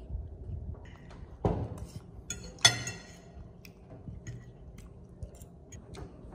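A monkey eating from a dish: scattered small taps and clinks of tableware, with a dull knock about a second and a half in and a sharp, ringing clink about a second later.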